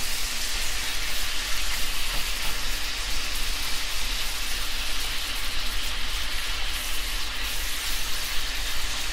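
Bite-size chicken breast pieces frying in oil in a skillet, a steady sizzle.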